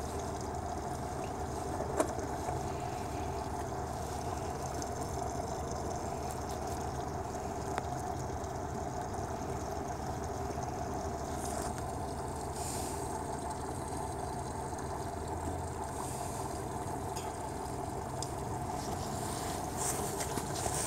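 Steady mechanical hum, with a single light click about two seconds in.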